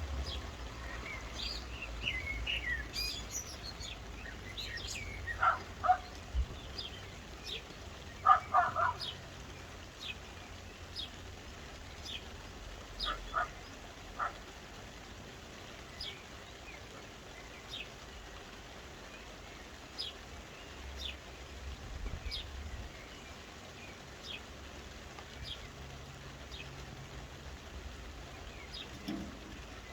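Soft rain falling steadily with birds calling over it: a short high chirp repeated about once a second, and a few louder, lower calls in the first half.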